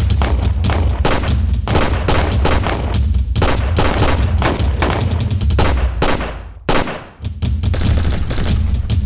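Rapid, sustained gunfire in a film shootout: dense volleys of pistol and long-gun shots following close on one another, with a brief lull a little past the middle before the firing picks up again.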